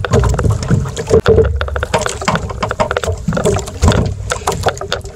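Water slapping against the hull of a small outrigger fishing boat, with a low rumble of wind and many sharp clicks and knocks as a rusty jobfish is reeled up and lifted aboard.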